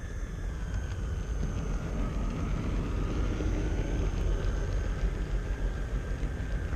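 HO-scale model train rolling along the track, heard from a camera riding on the train: a steady low rumble with a faint thin high whine above it.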